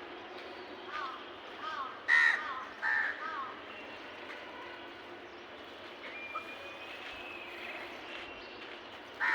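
Crows cawing: a few short calls about a second in, loud caws about two and three seconds in, and another caw at the end.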